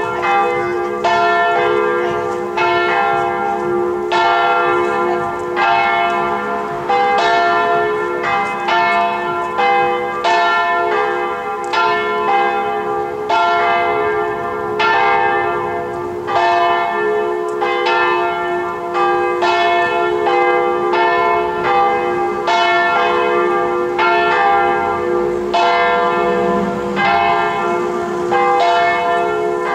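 Marmorkirken's church bells, swung in the open bell lantern, pealing together: a fast, overlapping run of strikes, each ringing on over a steady hum of lingering bell tones.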